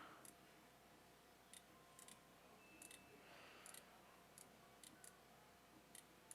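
Near silence with faint, scattered clicks of a computer mouse, about a dozen spread irregularly over several seconds.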